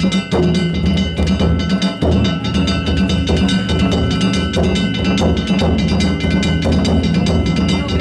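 Danjiri float's festival percussion (narimono): taiko drums beaten with a steady, driving beat while small hand gongs (kane) are struck rapidly and keep ringing over them, without a break.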